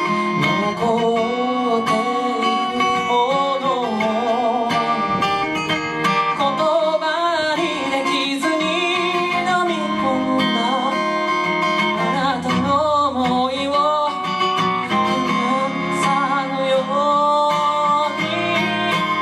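Live song with acoustic guitar accompaniment under a wavering, sustained melody line.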